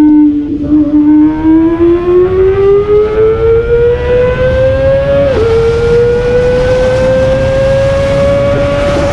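Kawasaki ZX25R's 250 cc inline-four engine under acceleration while riding, its high-pitched note climbing steadily through the revs. It upshifts about five seconds in, the pitch dropping sharply and then climbing again, and shifts once more near the end, with wind rush building as speed rises.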